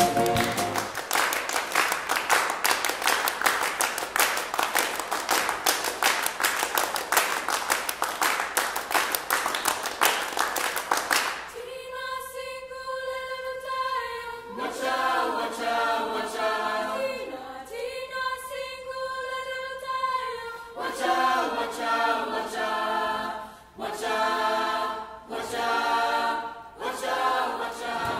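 Audience applauding for about the first eleven seconds, then a mixed choir begins singing a cappella in long held chords, with short breaks between phrases.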